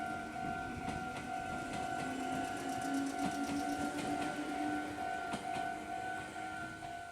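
Japanese level-crossing warning bell ringing steadily while a Meitetsu 5000 series electric train passes, its motor whine rising in pitch over a few seconds, with clicks from the wheels on the rails.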